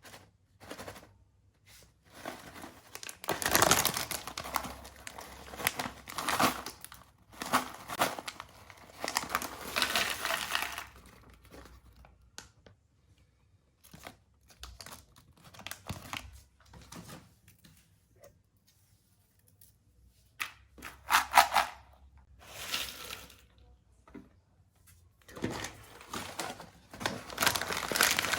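Plastic ciki snack packets being torn open and crinkled by hand, in irregular bursts with quieter pauses between.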